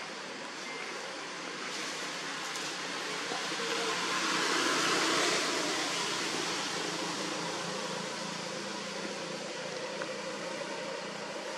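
Steady rushing outdoor background noise that swells to its loudest about five seconds in and then eases off.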